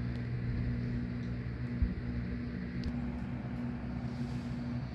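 Steady low machine hum, with a couple of faint clicks.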